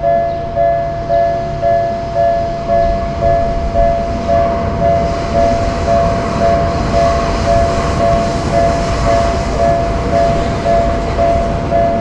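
Japanese level crossing warning bell ringing 'kan-kan' about twice a second, each two-tone strike dying away before the next. A train passes the crossing: its rumble swells from about three seconds in and fades near the end.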